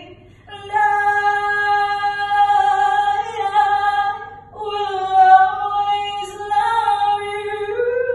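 A woman singing solo with no accompaniment, holding a long sustained note. After a short break about four and a half seconds in, she holds a second long note.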